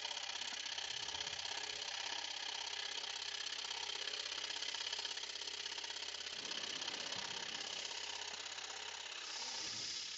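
Axminster Professional AP535SS 21-inch scroll saw running steadily, its blade cutting along a traced pattern in a wooden board with a fast, even buzz.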